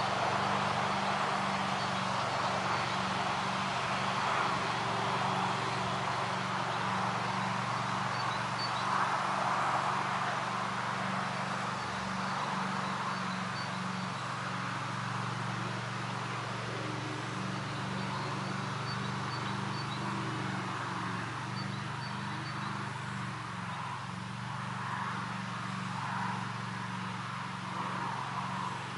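Wind gusting over a pond, swelling and easing, with a frog chorus calling in a steady low pulsing drone underneath and faint high chirps here and there.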